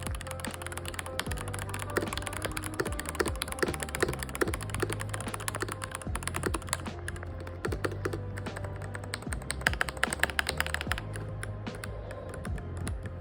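Typing on a mechanical keyboard: a fast, uneven run of key clicks that is densest a little past the middle. Background music with a steady bass line plays under it.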